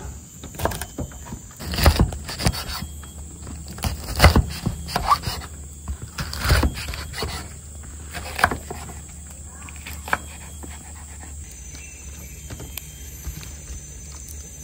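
Kitchen knife slicing red chillies on a wooden chopping board: irregular knocks of the blade striking the board, sometimes in quick pairs, stopping about eleven seconds in.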